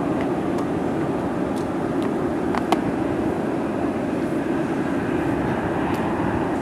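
Steady rumble of an Airbus A320's jet engines at takeoff power as the airliner climbs out after departure, with one sharp click about two and a half seconds in.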